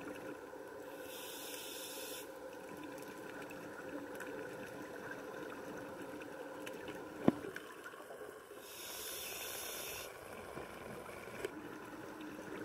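Underwater ambience: a steady hiss of water, with two hissing bursts about a second long, one just after the start and one about nine seconds in, and one sharp knock about seven seconds in.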